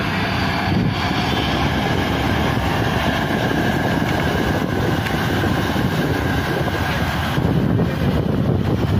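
Steady engine noise of the Barcelona VA passenger ferry, mixed with rushing, splashing water along its hull as it pulls away from the quay.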